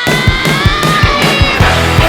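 Background rock music with a steady drum beat and distorted guitar.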